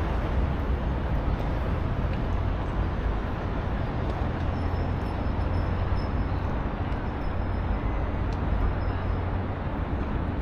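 Steady low engine rumble under a constant outdoor hiss, with no distinct events.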